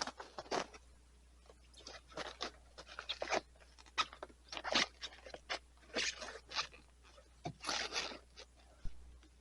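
Irregular crunching and scraping noises, a quick string of short bursts at uneven intervals.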